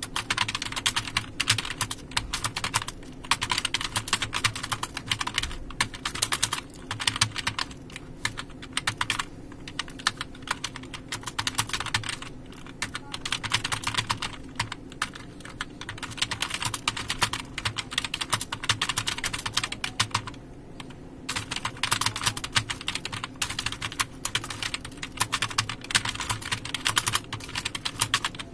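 Fast typing on a computer keyboard: dense runs of key clicks with a few brief pauses, the longest about two-thirds of the way through, over a faint steady hum.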